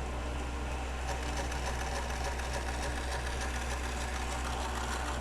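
Knife-making belt grinder running steadily: a low motor hum under a hiss that grows a little brighter from about a second in.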